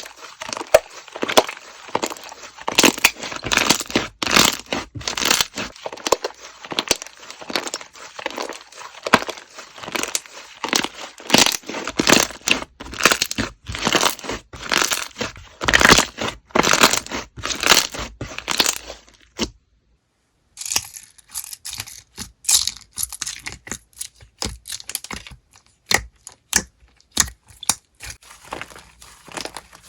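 Slime being squeezed and worked by hand, a dense run of crackling, crunching clicks. After a short break about 20 seconds in, the clicks come sparser and thinner.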